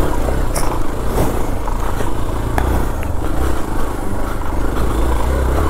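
Motorcycle engine running steadily under load while riding up a rough, slippery dirt track, with a few sharp clicks along the way.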